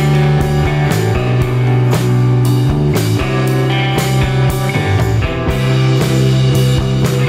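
Instrumental rock background music with guitar and a steady drum beat.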